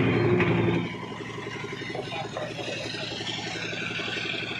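Motorcycle engine idling with an even, rapid beat, a little louder in the first second.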